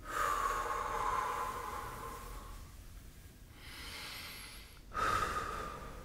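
A man breathing deeply and audibly: one long breath over the first two and a half seconds, then two shorter ones starting about three and a half and five seconds in.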